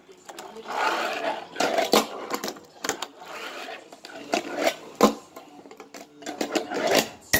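Fingerboard clacking on a wooden tabletop and a model stair set: several sharp clicks of the board and its trucks hitting, with two short stretches of rolling noise from the small wheels.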